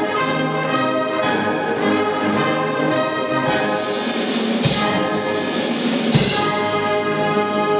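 Wind band playing a polka for two solo trumpets, full brass sounding together with held chords. Two low thumps come about halfway through, a second and a half apart.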